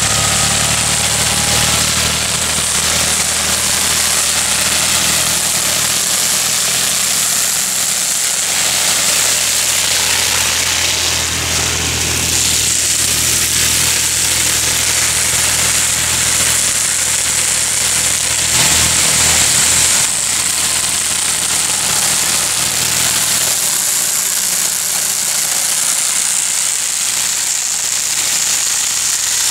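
Tractor engine running steadily under load while a Bio Rotor BRF rotary weeder churns through grass and soil around fruit-tree trunks, with a steady high hiss over the low engine note.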